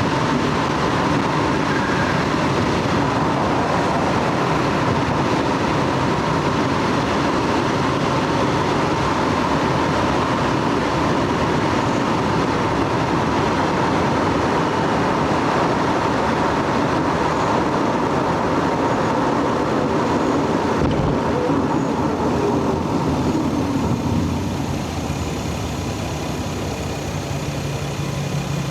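Lexus GS300's inline-six engine and tyre noise as the car cruises at a steady speed, a continuous drone that eases off slightly near the end.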